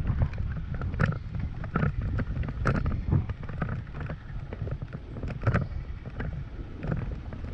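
Toyota Tacoma pickup driving slowly over a rutted dirt trail: a steady low rumble, with irregular knocks and rattles as it goes over bumps, and wind buffeting the microphone.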